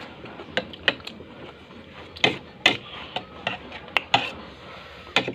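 Eating sounds: homemade bamboo chopsticks clicking and tapping against a plate at an irregular pace, about a dozen sharp clicks.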